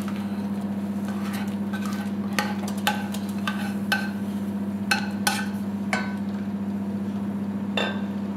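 Plastic spatula scraping and knocking swollen gelatin off the rim of a stainless steel bowl into a saucepan of broth: a string of about ten light, irregular knocks over a steady low hum.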